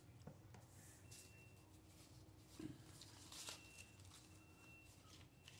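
Near silence with faint rustling of paper banknotes being handled and slipped into a binder, a couple of soft rustles about two and a half and three and a half seconds in.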